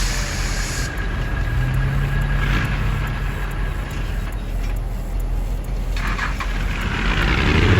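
Diesel locomotive engine running with a steady low rumble and bursts of air hiss; the engine note rises near the end as it throttles up.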